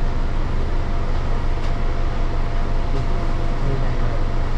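Steady low hum of a Keio Line electric commuter train standing at the platform with its doors open, its air conditioning and on-board equipment running, with a thin steady whine above the hum.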